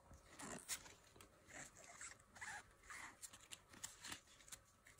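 Faint rustling and sliding of trading cards being handled out of a freshly torn foil booster pack: a string of short, soft scrapes.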